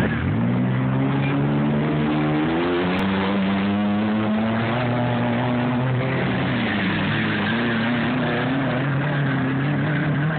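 Motor vehicle engine running, its pitch climbing a few seconds in and then wandering down and up again as the engine is revved.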